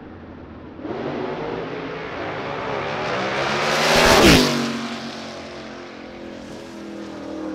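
Two drag race cars launching and running down the track at full throttle, engine pitch climbing steadily. The loudest moment comes about four seconds in as a car passes close by with a sharp drop in pitch, then the sound fades downtrack, with a smaller swell near the end.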